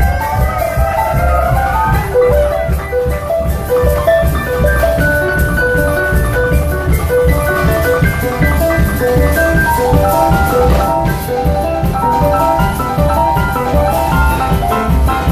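Live band playing an instrumental break between sung verses: a lead instrument plays a run of short, bright notes over a steady drum and bass beat, with a few sliding notes in the first couple of seconds.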